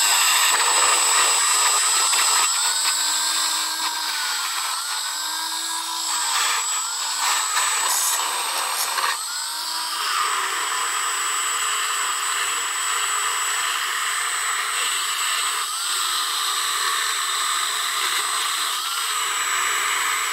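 Dremel rotary tool with a wire brush running at high speed against the cast-iron head of an 1895 Singer 15-11 sewing machine, scrubbing leftover paint and stripper residue from its holes and edges. A steady high whine with a gritty scraping hiss; the pitch wavers up and down several times in the first half.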